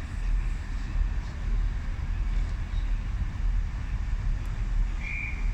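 Steady low rumble with wind on the microphone; about five seconds in, a guard's whistle gives one short blast, signalling that the train is ready to depart.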